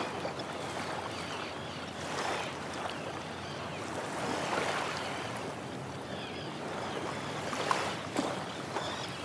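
Gentle sea waves washing and lapping, swelling every two to three seconds, with a few small splashes in the second half.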